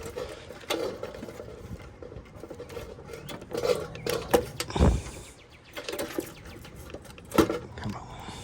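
Scattered clicks, taps and knocks of hands, tools and meter leads at the condenser's capacitor. A heavier knock comes about five seconds in and another about seven and a half seconds in.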